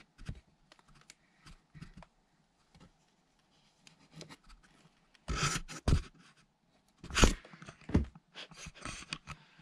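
Cardboard rubbing and scraping close to the microphone, with scattered clicks and a cluster of loud bumps in the second half.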